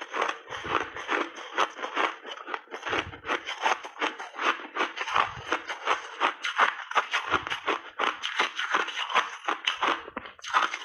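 Close-up chewing of ice and frozen berries: a rapid, steady run of crunches, about three to four a second.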